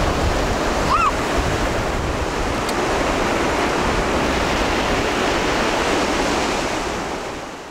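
Sea surf: waves breaking and washing up the beach, a steady rush of noise that fades down near the end.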